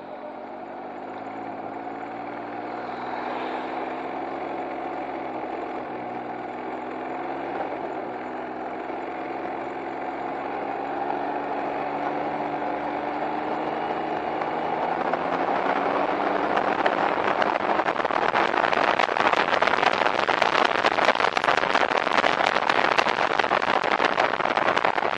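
Can-Am Ryker engine running at low revs with a steady hum as the trike rolls slowly. From about fifteen seconds in, a rushing wind and road noise grows louder as it picks up speed and covers the engine.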